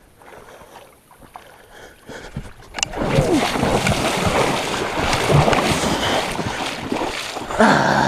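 Rubber muck boots wading fast through shallow creek water, splashing loudly with each step. The splashing starts about three seconds in and ends just before the end. A short voice-like breath follows.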